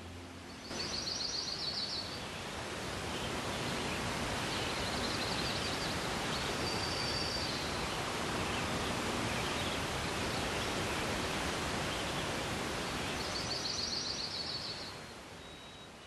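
Outdoor nature ambience: a steady rushing hiss, with a bird giving a quick high trill near the start and again near the end, and a short chirp in the middle.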